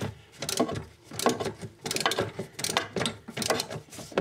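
Socket ratchet clicking in repeated short bursts, about one or two a second, as it is worked back and forth on a box spanner to undo the tap's corroded 11 mm fixing nut.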